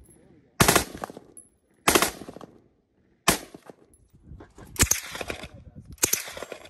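FN FS2000 5.56 mm bullpup rifle fired in short bursts of automatic fire, several shots to a burst, with the bursts coming roughly every second and a half; five bursts in all, the last near the end.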